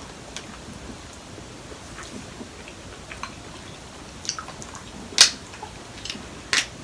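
A person eating close to the microphone: chewing and mouth sounds with scattered sharp clicks, two louder ones about five and six and a half seconds in.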